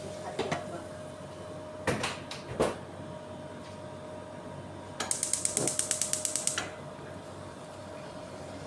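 A gas stove's spark igniter clicking rapidly, about ten clicks a second for a second and a half, as the burner under the frying pan is lit. Two sharp knocks come a few seconds before it.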